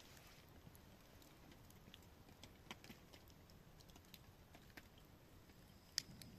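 Near silence with faint, scattered clicks and one sharper click near the end.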